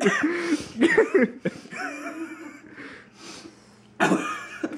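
A man coughing in short bursts, with brief strained vocal sounds in between, as the burn of a freshly eaten ghost pepper sets in; a sudden loud cough comes about four seconds in.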